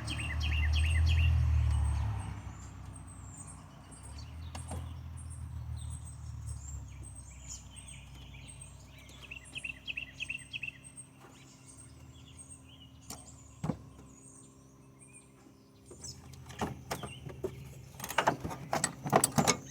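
Birds chirping over a low background rumble, loudest in the first two seconds. Scattered clicks follow, with a quick run of knocks and clatter near the end.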